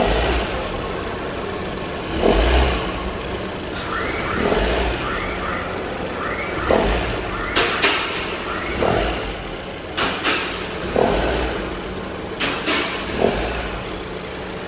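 Honda Civic RS Turbo's 1.5-litre turbocharged four-cylinder engine running, revved up in surges about every two seconds, with a few sharp clicks. The engine is making an abnormal noise, put down to a failing serpentine belt auto tensioner.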